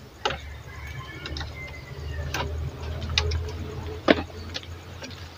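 Scattered clicks and light crackles from a clear plastic bottle and its wire hanger being handled and adjusted, the sharpest click about four seconds in, over a steady low rumble.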